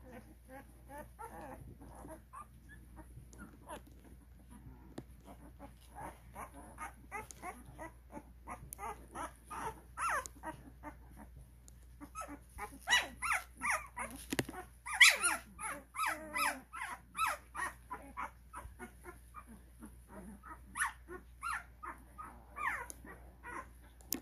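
A litter of 12-day-old Cane Corso puppies crying in many short, high calls, some sliding in pitch. The calls overlap and get busier and louder from about halfway through.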